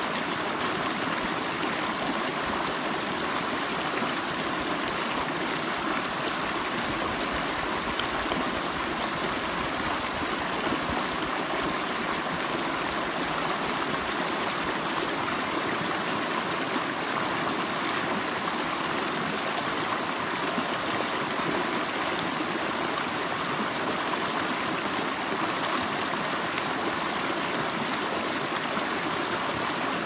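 Shallow rocky mountain creek rushing steadily over and around boulders.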